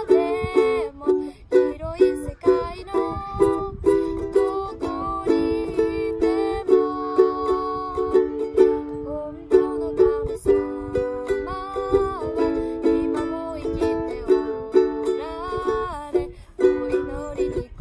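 Ukulele strummed in a steady rhythm, accompanying a girl singing a children's gospel hymn in Japanese.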